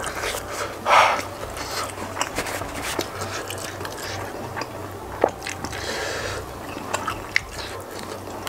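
Close-miked chewing and mouth sounds of a person eating, with a few scattered sharp clicks and a short louder noisy burst about a second in.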